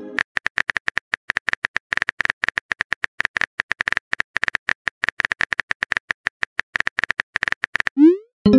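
Rapid, irregular keyboard-typing click sound effect of a chat-story video, many clicks a second. Near the end comes a short rising whoosh, then a brief chiming pop as the next message is sent.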